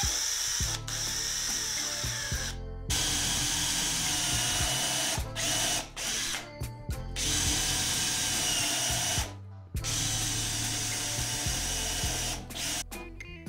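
Cordless drill motor running in several runs of a few seconds each, with short stops between them, as the bit drills through a cork disc and into a softwood block.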